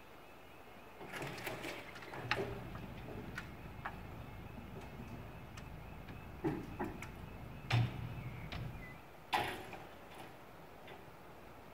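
Full-road-width level crossing barriers lowering: a motor hum with clicking and clanking as the booms come down, and several sharp knocks, the loudest near the end as a barrier strikes the road. A faint flat alarm tone runs steadily underneath.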